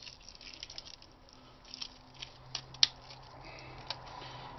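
Hands working a small power-supply transformer apart, pulling at its copper winding and tape: faint rustling and light scraping with scattered small clicks, and one sharp click a little under three seconds in.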